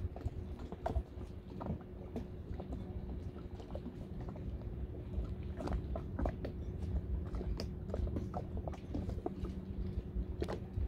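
Steady low hum and rumble of a boat's motor, with many irregular light clicks and taps over it.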